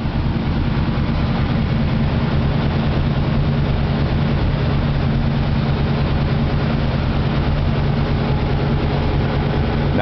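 1940 Lincoln Zephyr's flathead V12 idling steadily through its dual exhaust while warming up from a cold start.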